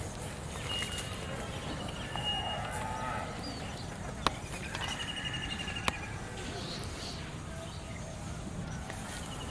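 Outdoor ambience with faint animal calls and a few short high chirps. Two sharp clicks come about four and six seconds in.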